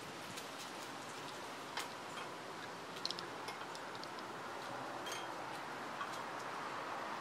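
Gray squirrel chewing and nibbling a nut, a few faint sharp clicks and crunches over a steady outdoor hiss that grows slightly louder near the end.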